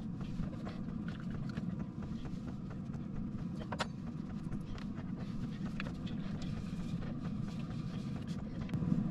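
A steady low machine hum inside the small van, with a few faint clicks and knocks of washing-up in a plastic bowl. Near the end a wooden chopping board is dipped into the water.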